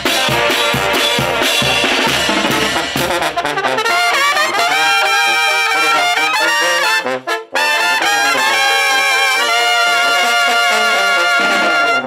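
Oaxacan banda de viento (trumpets, alto horns and a sousaphone) playing a tune outdoors. For the first few seconds it plays over a steady beat; then the brass plays on alone with a wide vibrato, stops for a brief break a little past halfway, and comes back in on held notes.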